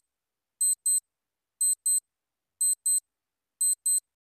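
Quiz countdown-timer sound effect: pairs of short, high-pitched electronic ticks, one pair each second, stopping as the timer runs out near the end.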